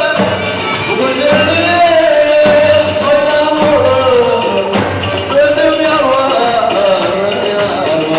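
Live Turkish oyun havası dance music: an ornamented melody with sliding pitch over the beat of a davul drum.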